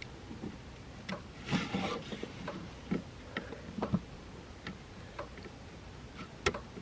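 Scattered light clicks, taps and rubbing of hands working with small tools, wires and tape, with a brief rustle near the start and a sharper tap near the end.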